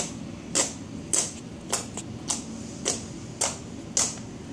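Homemade pink slime being worked by hand, giving short sharp popping clicks in an even rhythm of nearly two a second.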